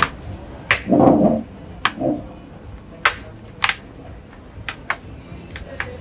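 Plastic snap clips of an Acer Nitro 5 laptop's bottom cover clicking into place as the panel is pressed home around its edges: a run of about nine sharp, irregularly spaced clicks. A short dull thump about a second in is the loudest sound.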